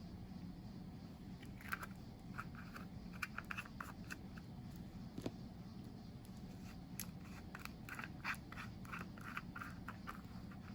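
Light crinkling and clicking of packaging being handled, in scattered clusters of short bursts, over a faint steady low hum.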